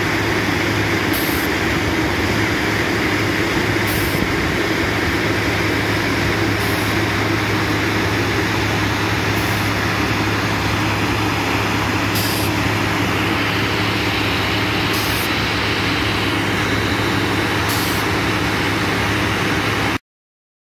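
Diesel engine of a vibroseis truck running steadily at a constant speed, with a short high sound repeating about every three seconds.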